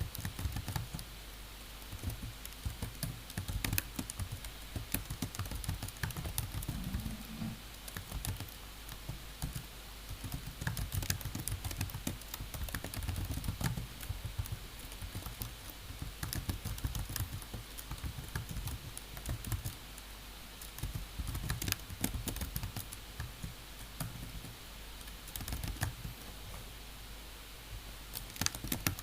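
Computer keyboard typing: a quick, uneven run of key clicks, with brief pauses, over a faint steady low hum.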